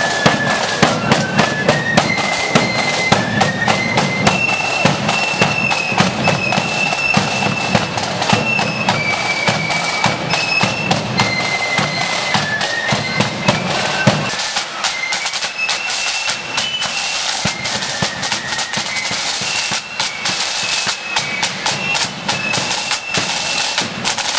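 Marching flute band playing a tune: massed flutes carry a high, stepping melody over busy snare drumming and a deep bass drum. A little past halfway the deep drumming falls away while the flutes and snares carry on.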